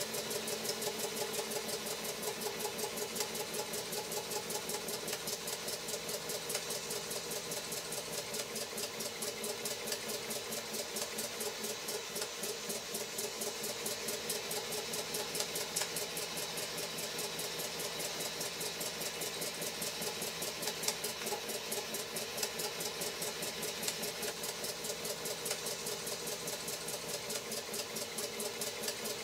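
Brass Birmingham Dribbler toy steam engine running at speed on a good head of steam: a rapid, even beat from its cylinder and motion over a steady hiss.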